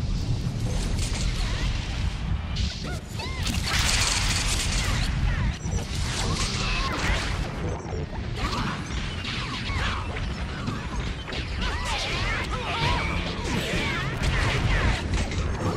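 Dense, continuous experimental electronic soundscape: a steady low rumble under swelling washes of hiss, with many short warbling, curling pitch glides.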